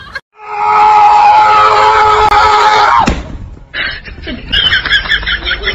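A husky's long, loud, steady howl lasting nearly three seconds and dropping off sharply at the end. It is followed by a shorter, quicker wavering sound.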